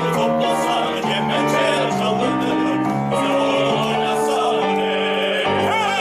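A male vocal quartet from an opera chorus sings in close harmony in operatic style, holding sustained notes and moving together from chord to chord.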